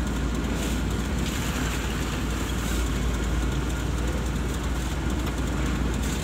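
Steady engine and road rumble heard inside the cab of a moving delivery truck.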